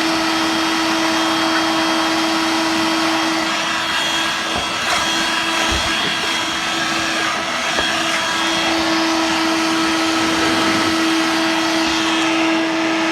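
Dirt Devil Vibe corded bagless vacuum, used as a handheld, running steadily with an even motor hum while sucking up spilled cat litter. A few small knocks come midway.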